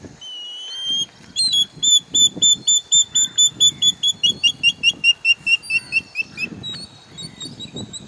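Great stone-curlew (great thick-knee) calling: a single rising whistle, then a fast, even run of loud whistled notes, about five a second, that slowly drop in pitch. Near the end this gives way to a fainter, higher wavering whistle.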